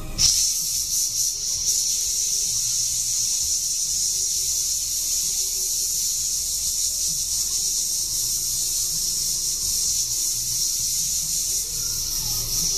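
Airbrush spraying paint: a steady high hiss of compressed air rushing through the nozzle, which starts abruptly and eases slightly near the end.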